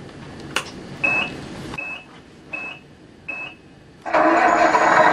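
Tamiya Multi-Function Control Unit sound module playing simulated truck sounds through the model's speaker. There is a click, then four short electronic beeps, the first one longer. About four seconds in, a loud, steady diesel truck engine sound cuts in abruptly, with a high whine over it.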